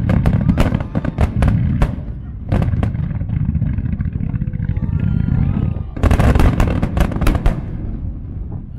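Aerial fireworks shells bursting in a dense barrage: clusters of sharp bangs over a continuous low rumble, with a second burst of rapid bangs about six seconds in, then dying away near the end.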